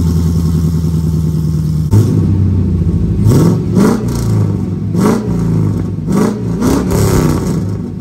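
LS V8 in a squarebody Chevy truck running through a pair of Magnaflow glasspack mufflers on freshly made dual pipes: idling steadily, then revved in a string of quick throttle blips from about three seconds in.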